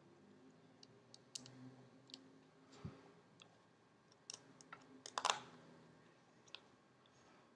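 Small, sharp clicks and taps from hands and a small tool working on an opened Samsung Galaxy S4's plastic frame on a tabletop. They come in scattered ones and twos, with a louder cluster of clicks about five seconds in.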